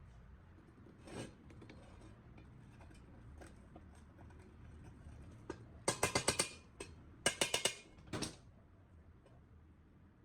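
Hand tools working on an old electric fan's parts: a few single knocks, then two short bursts of rapid clicking about six and seven seconds in.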